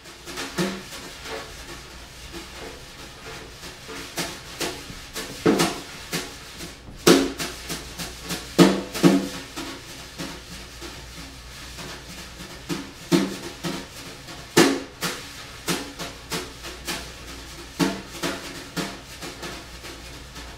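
A drum played with sticks in free, irregular strokes. Each hit rings briefly with a low pitch, and there is a loud cluster of hits about halfway through.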